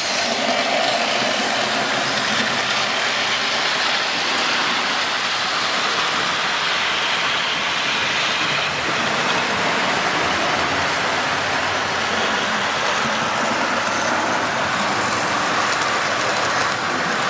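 Model trains running on the layout's track, giving a steady, continuous noise of wheels on rail and locomotive motors.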